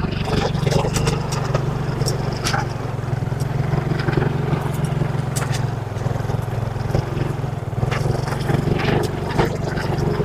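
Motorcycle engine running steadily under load while climbing a steep dirt incline, with scattered clicks and knocks over it.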